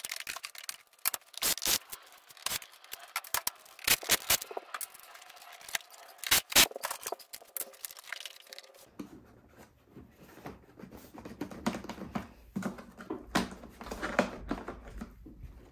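Hard plastic side panel of a Westinghouse iGen4500DF generator being handled and wiggled loose: irregular clicks, knocks and scrapes of plastic against plastic, with a low rumble of handling noise added about halfway through.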